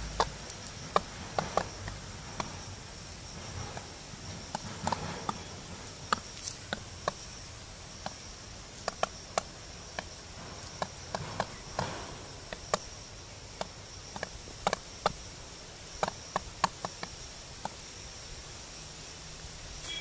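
Peafowl beaks pecking and striking at a snake and the dry ground, making sharp, irregular clicks and knocks, a few each second. A steady high insect drone runs underneath.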